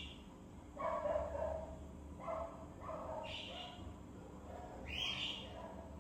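Animal calls: a handful of short mid-pitched calls, dog-like barks, bunched in the first half, with four short, higher bird-like calls spread through.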